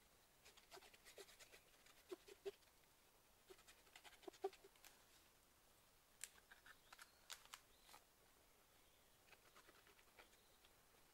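Faint, light clicks and scratches of paper and card being handled while a needle-tip glue bottle is drawn along the edges of the pages. They come in a few short clusters.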